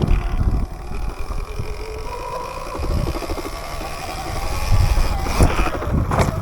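Small off-road motorbike riding off and accelerating, its motor note rising in pitch for a few seconds, with wind buffeting the microphone and two sharp knocks near the end as the bike goes over rough ground.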